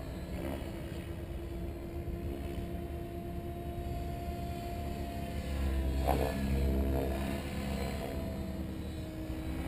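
Synergy E7se electric RC helicopter flying overhead: a steady hum of the motor and spinning main rotor, which swells and shifts in pitch about six seconds in.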